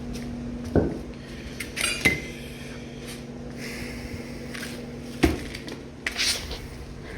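Metal tools and engine parts clinking and knocking, with three sharper knocks, over a steady low hum.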